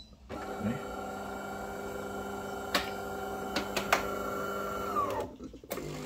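DeLonghi Autentica bean-to-cup coffee machine's pump running with a steady hum while it rinses itself during shutdown, with a couple of sharp clicks. About five seconds in the hum drops in pitch and stops, and a lower hum starts again just before the end.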